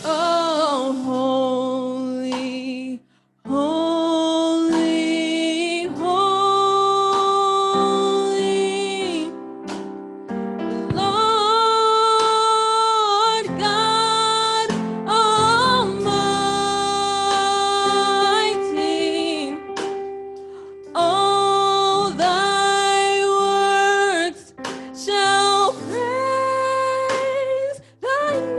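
A woman singing a slow gospel worship song over instrumental accompaniment, holding long notes with a wavering pitch, with short breaks between phrases.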